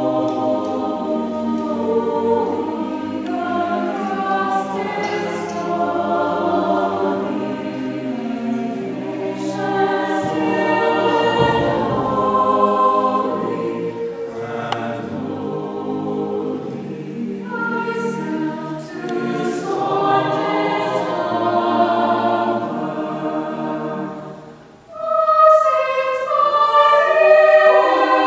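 Chamber choir singing in parts. About three-quarters of the way through, the voices stop briefly, then come back in louder on a higher chord.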